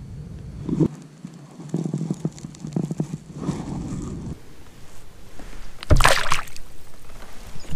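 A small largemouth bass released over the side of a kayak, hitting the water with one sharp splash about six seconds in. Before it, a few seconds of scattered knocks and rustles from handling.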